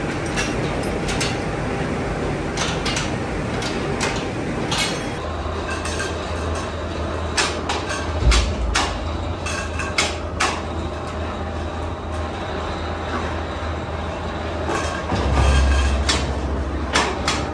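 Factory machinery in a plastic recycling and tank-making plant running steadily, with a low hum that comes in about five seconds in and a scattering of sharp knocks and clanks.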